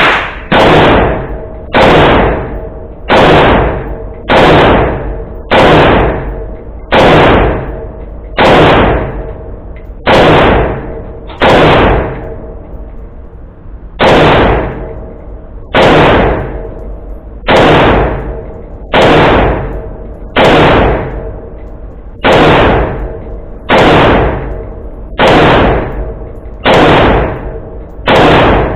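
Great Lakes Firearms GL-15 AR pistol in .223 Wylde (7.5-inch barrel, muzzle brake) fired semi-automatically in an indoor range: about nineteen shots at a steady pace of roughly one every second and a half, with a slightly longer pause about halfway. Each shot is followed by ringing reverberation off the range walls.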